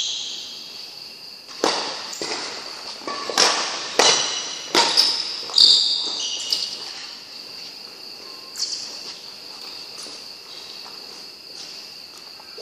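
Badminton rally: a shuttlecock struck back and forth with rackets, a sharp crack about every second for the first six seconds and one more hit later, each echoing in a large hall. A high, steady ringing tone runs underneath.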